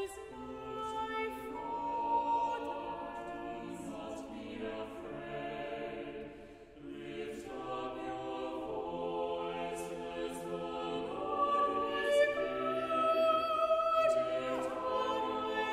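Choir singing a slow piece in several parts, holding each note for about a second before moving on, with a short break between phrases about six seconds in.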